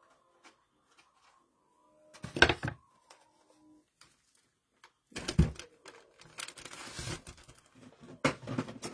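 Artificial fall leaves and craft decor being handled and pushed into a bow: scattered light clicks and rustling, two louder knocks about two and a half and five seconds in, and a longer stretch of rustling near the end.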